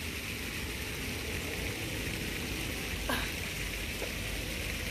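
Steady outdoor background hiss with an uneven low rumble underneath. A brief falling whistle-like call sounds about three seconds in.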